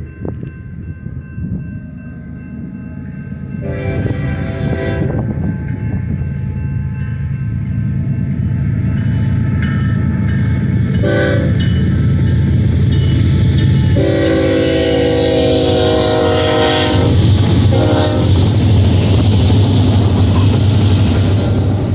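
Diesel freight locomotive's air horn sounding for a grade crossing in four blasts: a long one about four seconds in, a short one near the middle, another long one, then a short one. Under the horn, diesel engine rumble and rail noise grow steadily louder as the BNSF locomotives (led by a GE ES44C4) draw near and pass.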